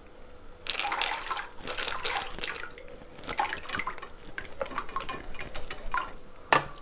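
Soaked chana dal poured from a plastic bowl into a pan of water, splashing and plopping in uneven spurts that start about a second in.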